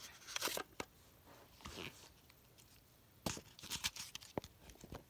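Scattered soft clicks and rustles of a plastic Nerf Mega Cyclone Shock blaster being handled as foam Mega darts are pushed into its cylinder, with a cluster of clicks late on.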